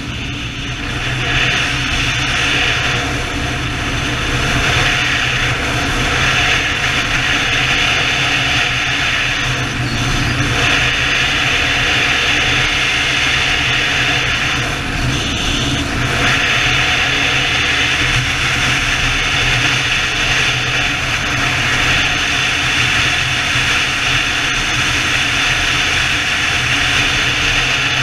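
Steady wind rush over the microphone of a BMW touring motorcycle cruising at road speed, with the engine's low drone underneath; the hiss eases briefly twice, about ten and fifteen seconds in.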